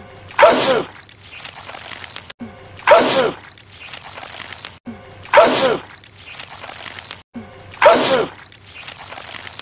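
A man's loud sneeze, the same film clip looped so that it comes four times about two and a half seconds apart, each sneeze followed by quieter noise and cut off by a brief silence before the next repeat. The sneezes are the character spraying purple goo.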